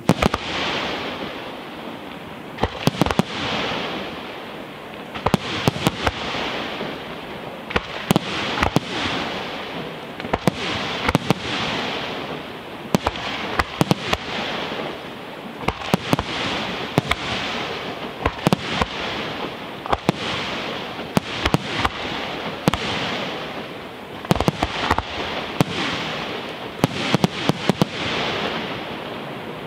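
Aerial firework shells bursting in volleys, a cluster of several sharp bangs about every two and a half to three seconds. Each volley is followed by a fading hiss from the burning stars.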